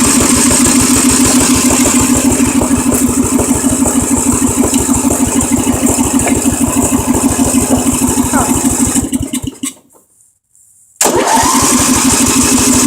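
Craftsman riding mower's starter cranking the engine in rapid even strokes for about nine seconds without it starting, a pause of about a second, then cranking again near the end. The engine fails to start, which the owner first takes for being out of gas.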